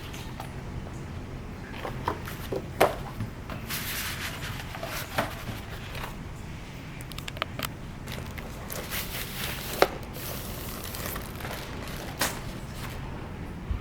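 Hands handling a vinyl LP's packaging: scattered knocks, taps and clicks with short bouts of paper or plastic rustling, over a steady low hum.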